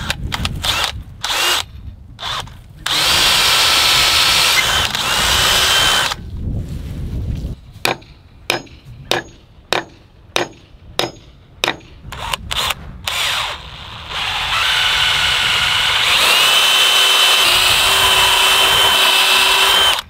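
Cordless drill with a long bit boring into a wooden fence post, first in a few short trigger bursts and then in a long steady run with a high motor whine. In the middle comes a row of about a dozen hammer blows, roughly two a second. The drill then runs steadily again for the last five or six seconds.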